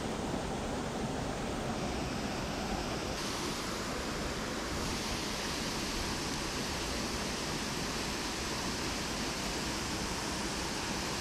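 Fast-flowing river water rushing steadily, an even hiss with no break. The sound turns brighter about three and five seconds in.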